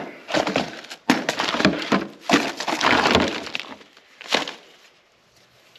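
Papers and plastic bags rustling and crackling as hands rummage through a basket of odds and ends, in irregular bursts that die down about four and a half seconds in.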